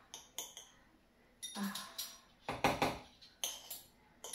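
Metal measuring spoon clinking and tapping against a glass jar while powder is scooped out, a series of light clinks with the loudest knocks a little past the middle.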